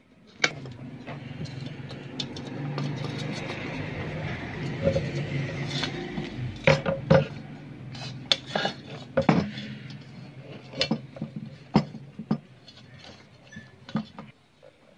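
Small metal parts and hand tools clinking and knocking in a string of sharp, irregular clicks while the churner's switch is being worked on, over a steady low hum.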